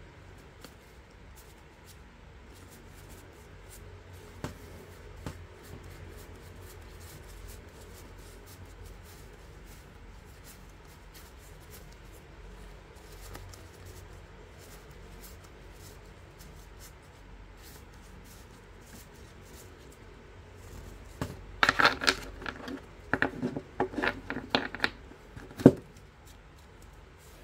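UNO Platinum Edition playing cards being handled: a few faint ticks at first, then near the end a flurry of cards sliding and flicking against each other, ending in one sharp snap.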